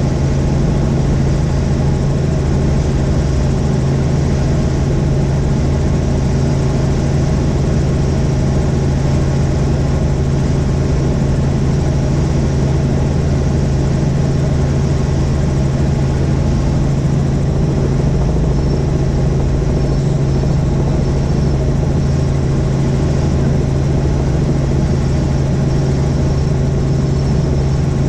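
Helicopter in flight: the engine and rotors give a loud, steady drone with a strong low hum held at one pitch.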